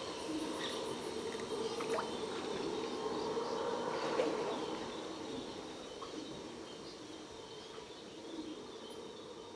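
Distant red howler monkeys calling: a low, rushing sound that swells to a peak about four seconds in and then slowly fades. Steady insect trilling and scattered bird chirps carry on above it, the dawn chorus of a flooded Amazon forest.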